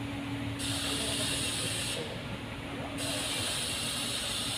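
Steady background hiss with a low, even hum. The upper part of the hiss cuts in and out about every second, and no distinct tool strikes or clicks stand out.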